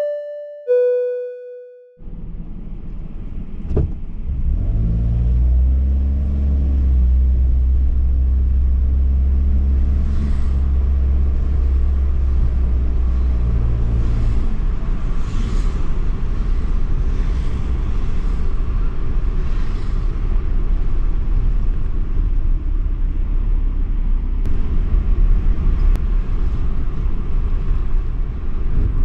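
A short musical jingle ends, then a vehicle is driven along a street: a steady engine rumble with road noise, the engine note rising as it accelerates a few seconds in.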